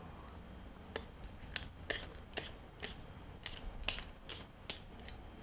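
Finger peeler scraping strips of skin off a large cucumber in a run of short strokes, about two a second.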